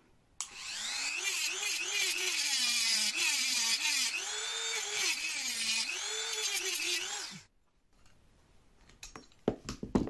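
Mini rotary tool with a cut-off disc running and cutting into the copper end of a refrigerator filter drier. Its whine keeps dipping and rising as the disc bites. It stops about seven and a half seconds in, followed by a few light clicks of small metal parts being handled.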